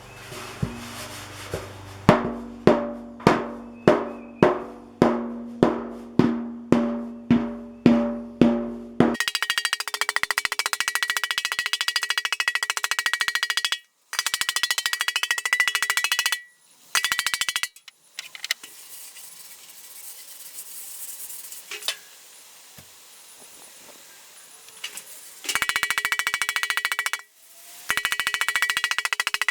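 Metal hammer blows ringing on a copper fire pit, about two a second for a dozen strokes, then a fast continuous rattle of strikes in several bursts with the copper ringing, as dents are worked out of the soft copper.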